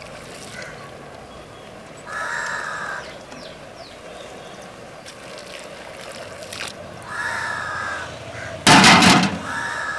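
Crows cawing in drawn-out calls about two seconds in and again about seven seconds in, over a steady background hiss. A loud, harsh burst comes near the end.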